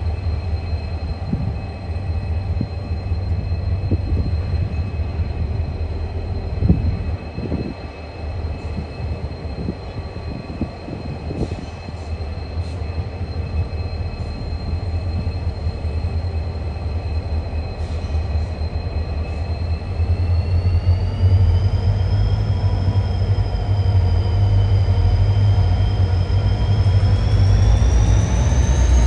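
XR class diesel-electric locomotives hauling a grain train at walking pace, engines rumbling with a steady whine over them. From about 20 seconds in the whine rises in pitch and the rumble grows louder as the locomotives power up.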